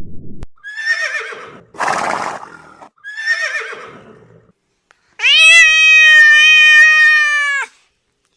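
Horse whinnying twice, with a breathy snort between the two calls. About five seconds in comes a loud, steady held tone lasting about two and a half seconds.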